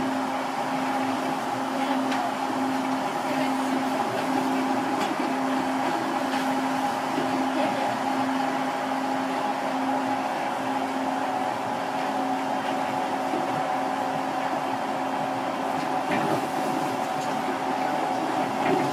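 Cabin noise aboard a Seibu 8500 series rubber-tyred guideway train running at steady speed: an even rolling rumble with two steady humming tones held level over it.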